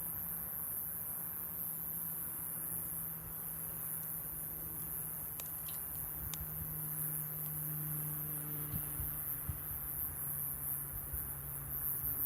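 Wood fire burning with a few sharp crackles and pops, over a steady high insect-like drone and a low hum.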